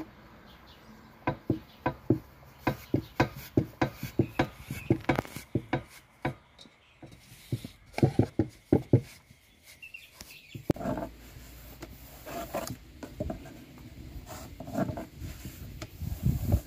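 Hands kneading and rounding a ball of yeast dough on a floured wooden board, giving a quick run of dull knocks, about three a second, from about a second in until about nine seconds in. After that come softer rubbing and scattered taps of dough being worked on the wood.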